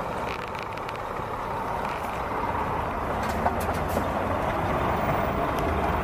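Scania R440 cement mixer truck driving past, its diesel engine running as a steady noise that grows gradually louder as the truck nears.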